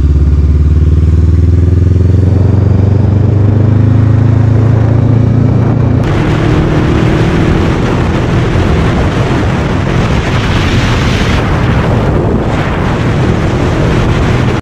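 Honda motorcycle engine pulling with a slowly rising pitch. About six seconds in it changes abruptly to a steady cruise with heavy wind rush on the microphone over the engine.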